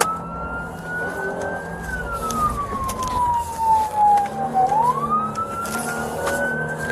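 Police car siren on a slow wail, its pitch climbing over about two seconds and falling away over about three, the cycle repeating about every five and a half seconds. Vehicle road noise runs underneath.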